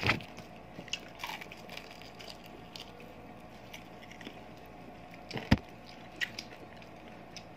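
Close-miked eating sounds: chewing and biting into fried chicken and rolls eaten by hand, with scattered small clicks and one sharper knock about five and a half seconds in, over a faint steady hum.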